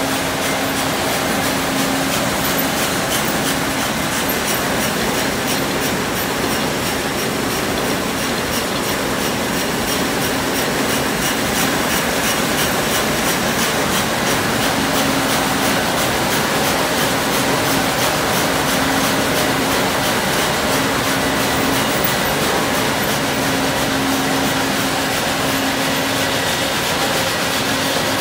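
Stamco steel coil slitting line running: sheet steel strips feeding through the slitter head and rewinding, a loud, steady mechanical din with a steady hum that fades out and comes back.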